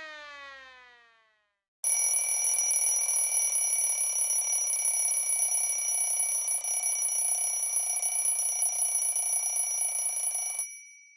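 A falling tone fades away at the start. Then, about two seconds in, an electric bell like an old telephone bell rings continuously for about nine seconds and cuts off abruptly near the end.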